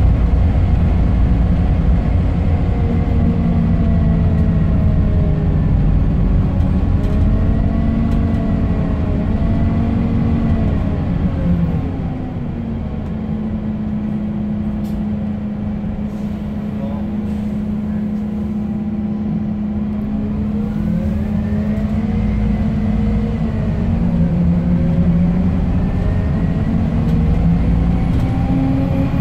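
Scania K270UB bus's five-cylinder diesel engine and driveline heard from inside the passenger cabin while under way, a low rumble with a whine that glides up and down in pitch as it pulls and eases off. About twelve seconds in it drops to a quieter, steady drone for several seconds, then pulls up again.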